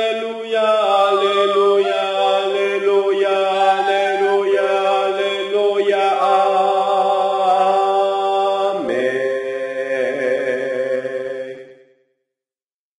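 Voices singing the closing 'aleluya' phrases in several-part harmony, from a choir part track for the bass voice. A last held chord, the 'amen', begins about nine seconds in and fades out near the end.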